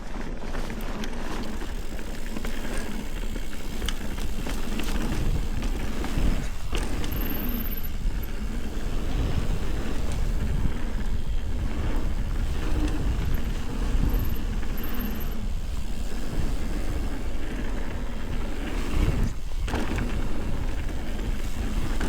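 Ibis Ripley mountain bike riding along a dirt trail: a steady rush of tyre noise and wind on the microphone, with occasional knocks and rattles from the bike.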